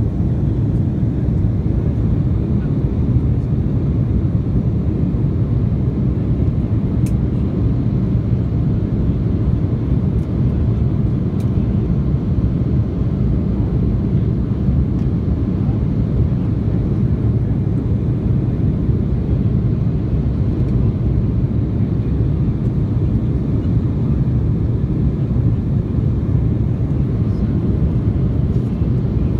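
Steady low cabin noise of an airliner climbing after takeoff: engines and rushing air heard from inside the passenger cabin, even and unbroken.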